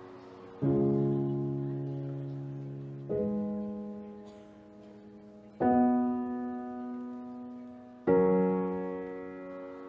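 Slow, gentle solo piano music: four sustained chords, struck about every two and a half seconds, each left to ring and fade.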